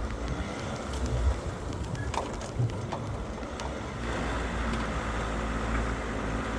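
Overland vehicle's engine running as it drives on a sand track, a steady low rumble with a few sharp knocks and rattles. It grows a little louder and fuller about two-thirds of the way through.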